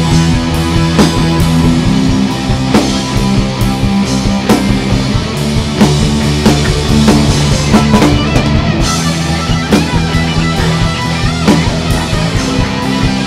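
Rock band playing without vocals: distorted electric guitar over a drum kit keeping a steady beat.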